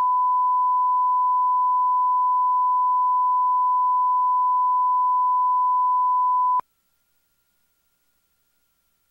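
Steady 1 kHz line-up test tone accompanying SMPTE colour bars, a single pure pitch. It cuts off suddenly about six and a half seconds in, leaving near silence.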